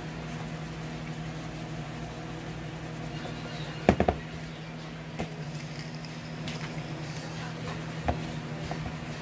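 Chicken wings being tossed by hand in seasoned flour in a plastic bowl, with a few sharp knocks as the bowl is handled, the loudest a double knock about four seconds in. A steady low hum runs underneath.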